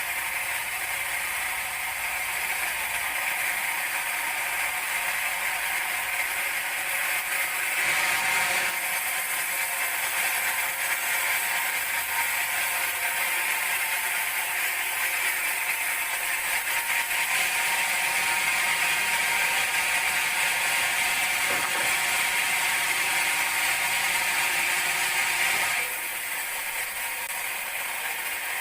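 Large band sawmill running steadily, its blade sawing a teak log into planks. The sound grows louder and brighter about eight seconds in and eases off again near the end.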